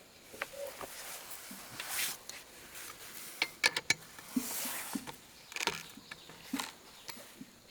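Irregular sharp clicks, taps and short scrapes, like small metal parts and hand tools being handled, with a quick cluster of clicks around the middle.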